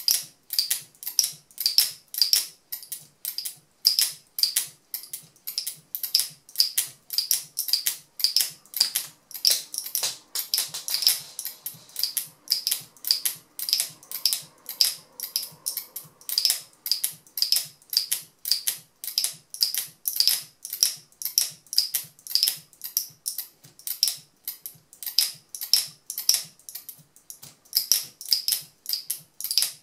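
Turquaz speargun camera mount's locking mechanism being snapped open and shut over and over by hand: sharp plastic clicks, about three a second, in a steady rhythm.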